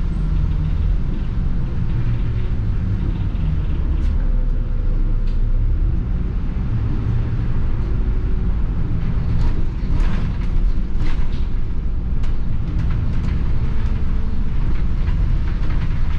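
A 2018 Volvo B7R city bus's 7-litre turbo diesel running as the bus drives, a steady low rumble with road noise. A few light clicks come through around the middle.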